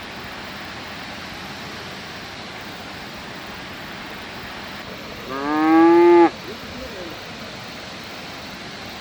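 A cow mooing once, a single call of about a second that rises slightly in pitch, about five seconds in, over a steady rushing noise.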